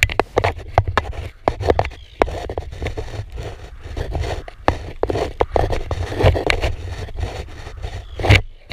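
Paddling an ITIWIT inflatable kayak: the paddle dipping and splashing, with many irregular knocks and taps against the boat, a strong knock near the end, over a steady low rumble.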